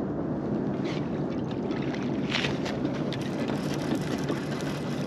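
Steady rushing noise of a fast, flooded river current around the boat, with a few faint ticks and a brief hiss a little past halfway.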